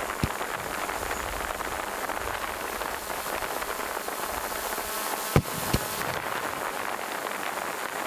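Fireworks going off over a steady crackling hiss: a light bang just after the start, then two sharp bangs about a third of a second apart a little past five seconds in.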